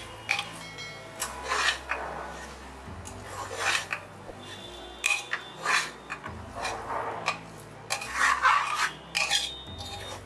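A spoon stirring and scraping thick mutton kheema against the sides and bottom of an aluminium pressure cooker, in irregular scraping strokes about once a second.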